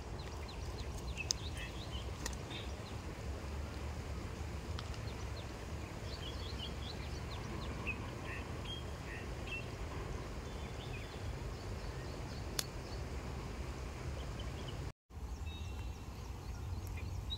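Outdoor creekside ambience: a steady low rumble with many short, scattered bird chirps. The sound cuts out completely for a moment about fifteen seconds in.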